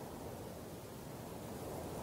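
Mountain stream flowing: a steady, low rushing of water that grows a little louder near the end.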